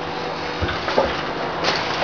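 A few light clicks and knocks from handling a dishwasher, heard over a steady background hiss.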